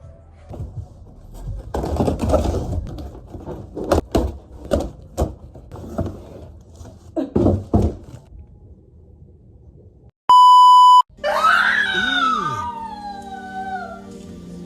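Irregular knocks and rustling for about ten seconds, then a loud steady electronic beep lasting under a second, followed by sliding, swooping electronic tones.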